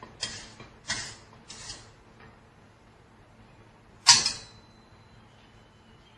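Cookware scraping and tapping as noodles are transferred from a pot into a bowl: a few short scrapes in the first two seconds, then one sharp clank with a brief ring about four seconds in.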